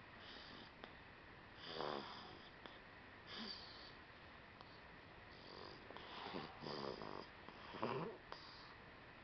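A two-month-old snoring in sleep: a series of irregular soft snoring breaths, some carrying a squeaky note that falls in pitch, loudest about two seconds in and again near the end.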